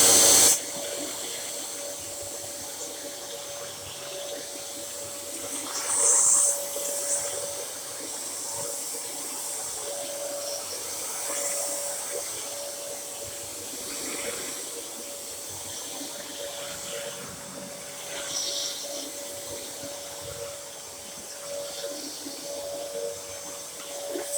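Dyson DC07 upright vacuum cleaner running, its motor holding a steady whine over rushing air. There is a loud rush of air in the first half second, and a few brief louder rushes about 6 and 18 seconds in.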